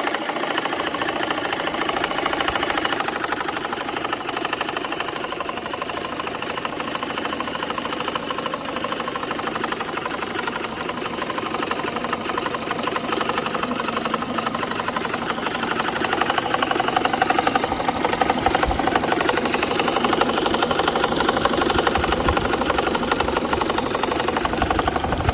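BMW N54 twin-turbo inline-six engine running with a fast, steady ticking knock, growing louder about two-thirds of the way through. The knock remains after a misfiring cylinder-1 fuel injector was replaced, and its cause is unknown to the owner.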